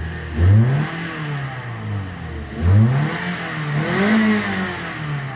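Toyota Corolla's four-cylinder engine being blipped with the throttle: three quick revs rise and fall back to idle, the first two the loudest. The engine revs cleanly with no fault codes after a broken camshaft-sensor connector was replaced.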